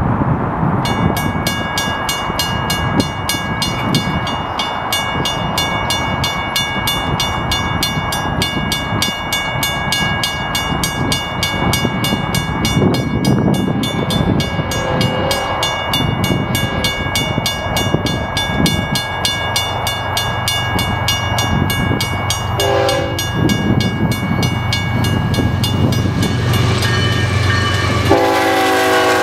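Railroad grade-crossing warning bell ringing in rapid, even strokes from about a second in, as a Union Pacific freight train approaches. The diesel locomotives' engine rumble builds over the last third. The train horn sounds briefly about two-thirds through and again, loudly, near the end as the locomotives pass.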